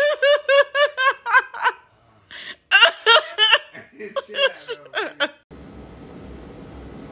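High-pitched laughter in quick repeated 'ha's, about five a second, in a few bouts with short breaths between. It breaks off about five and a half seconds in, leaving a steady faint hiss.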